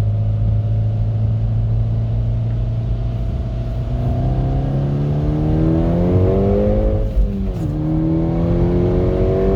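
Seat Leon Cupra R's 2.0 TFSI turbocharged four-cylinder engine pulling hard under full throttle. It runs steadily at first, then rises in pitch for a few seconds, drops sharply with an upshift about seven seconds in, and climbs again. It is running at full power with no misfire after a cylinder-4 misfire was repaired.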